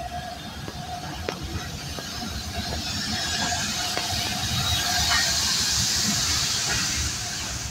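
LMS Stanier Black Five steam locomotive 44932 running slowly past a platform, its cylinder drain cocks hissing steam. There is a steady high whine and scattered clicks, and the hiss swells about halfway through as the engine draws level.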